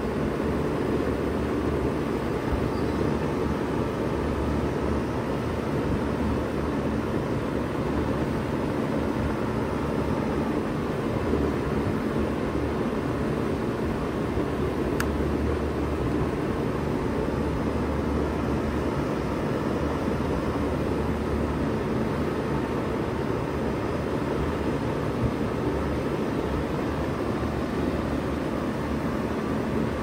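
1996 Bard 3-ton wall-mounted heat pump running steadily in cooling mode: a low, even hum under a steady rush of air from the unit.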